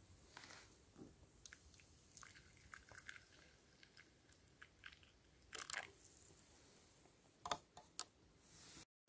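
Near silence with faint, scattered small crackles and clicks, and two louder short rustles about five and a half and seven and a half seconds in.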